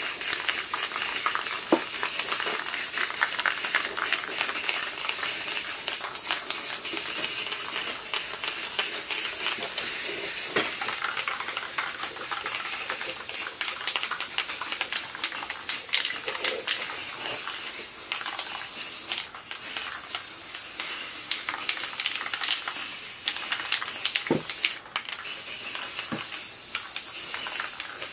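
Aerosol spray-paint can hissing steadily as paint is sprayed, breaking off briefly twice late on when the nozzle is let go.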